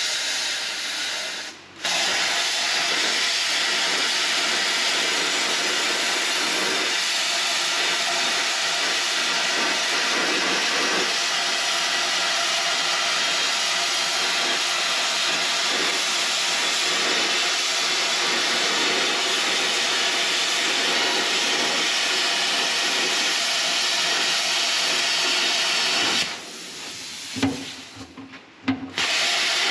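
Plasma cutter torch hissing steadily as it cuts through rusted sheet-steel car floor pan. The hiss stops for a moment about two seconds in, and again for about three seconds near the end, then starts up again.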